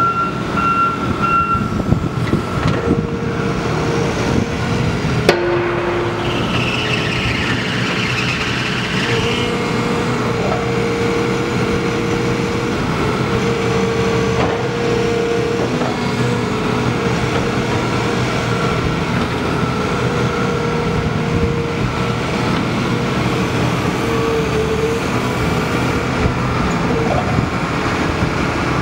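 Volvo EW160C wheeled material handler's diesel engine running under load as the upper structure swings and the boom and grapple move, with a steady hydraulic whine that comes and goes. A single sharp click about five seconds in.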